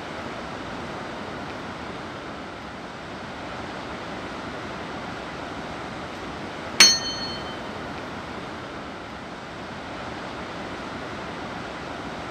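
Steady rush of water over the Trappstegsforsen's wide stepped cascades. About seven seconds in, a single bright bell-like ding rings briefly, a subscribe-button chime.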